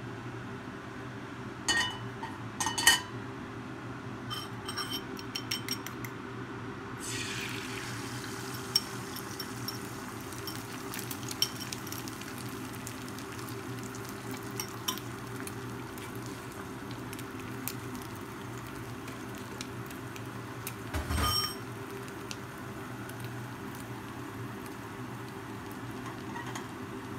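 A few metal clinks, then beaten egg hitting a hot stainless-steel honeycomb-pattern frying pan and sizzling from about a quarter of the way in, with small scattered pops and one louder knock about two-thirds through.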